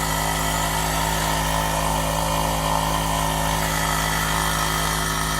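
Air compressor running steadily with an even hum. The pump is moving air, but the tank is not filling.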